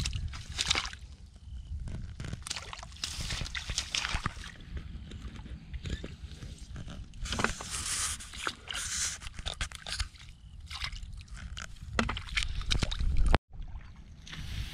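Wet grass rustling and muddy water sloshing and splashing in irregular bursts as hands tear at grass clumps and bare feet wade through shallow mud. The sound cuts out abruptly for a moment near the end.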